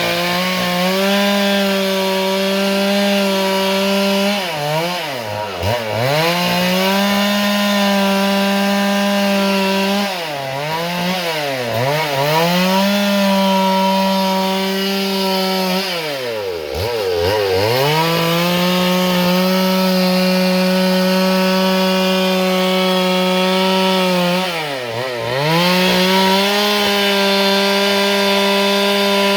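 Stihl MS 382 two-stroke chainsaw cutting dry eucalyptus at full throttle. Four times its pitch sags deeply and climbs back as the engine bogs down under the load of the hard, dry wood.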